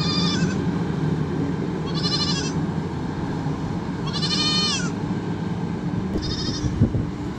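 Four short bleats from livestock, about two seconds apart; the third is the longest and falls in pitch at its end. Underneath runs the steady low rumble of a wheel loader's diesel engine.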